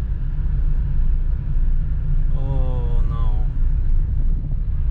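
Steady low rumble of a car on the move, engine and tyre noise heard from inside the cabin. A brief wavering tone comes about halfway through.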